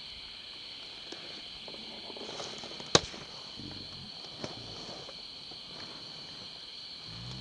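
A steady high-pitched insect buzz in the forest, over soft footsteps on the trail. One sharp crack about three seconds in is the loudest sound.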